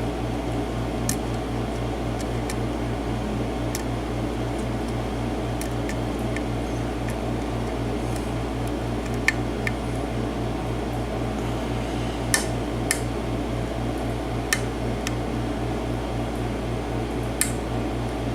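Lock pick working the pins of a 6-pin mortise lock cylinder: faint, sharp metallic clicks at irregular intervals, over a steady low hum.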